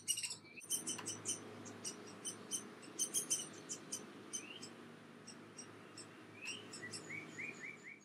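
Downy woodpeckers calling: a stream of short, high chirps, several a second, with a quick run of shorter, lower calls near the end. It is a fledgling begging to be fed by its father.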